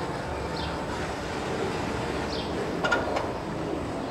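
Huss gyro tower's drive machinery running with a steady mechanical hum. A short high falling squeak repeats about every two seconds, and a brief clatter of clicks comes about three seconds in.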